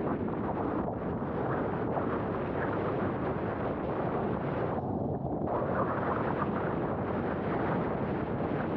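Strong wind buffeting an action camera's microphone, mixed with water rushing and spraying past a windsurf board sailing in high wind. The upper hiss drops away briefly about five seconds in.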